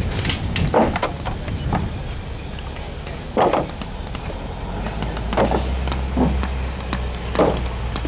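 Concrete paving blocks knocking together in short, separate clacks as they are handled and set, about six in all, over a low steady rumble.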